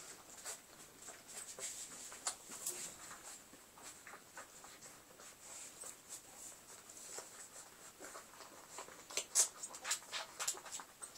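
Newborn Doberman puppies nursing from their mother: a scatter of faint, short squeaks and suckling clicks, busiest about nine seconds in.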